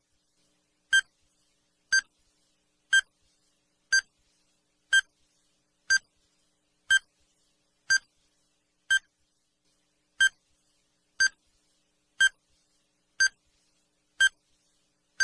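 Countdown timer sound effect: short electronic beeps, one each second, with silence between them, counting down the last fifteen seconds.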